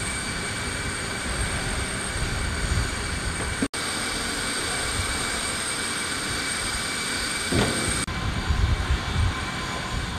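Steady high-pitched whine over a low rumble from a parked Antonov An-124-100 cargo aircraft and its ground machinery, with a few heavy clunks in the last couple of seconds.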